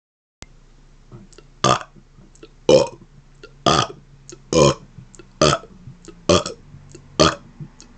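A man burping in rapid fire: seven short, loud burps, about one a second.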